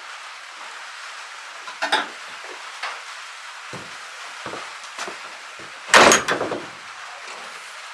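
A few scattered knocks and clatters, with a louder bang and short rattle about six seconds in.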